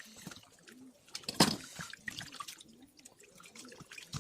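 Wet chewing and mouth sounds of a person eating chicken close to the microphone: scattered small clicks, with one louder sharp smack about a second and a half in.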